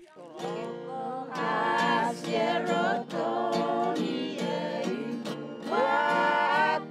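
A group of women singing together in harmony, accompanied by an acoustic guitar.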